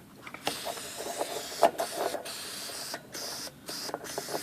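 Aerosol can of light spray lubricant hissing in several short bursts into an IBM Selectric typewriter motor, with a few light knocks of handling.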